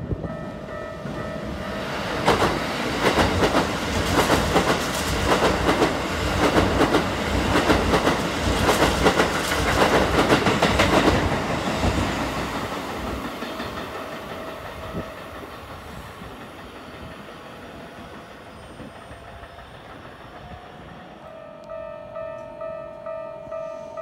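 Red Keikyu electric train running past the platform, its wheels clattering in rhythm over the rail joints, then fading away. Near the end a pulsing two-note electronic chime starts up.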